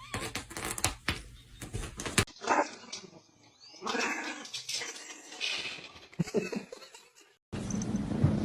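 A dog whimpering and yipping, with clicks and knocks in the first two seconds. A steady low rumble begins near the end.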